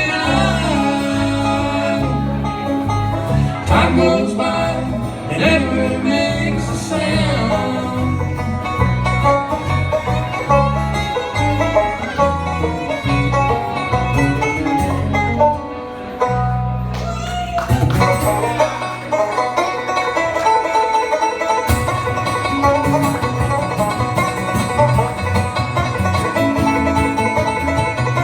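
Live bluegrass band playing an instrumental passage, banjo to the fore over guitar. The sound briefly drops away about sixteen seconds in, then picks up again.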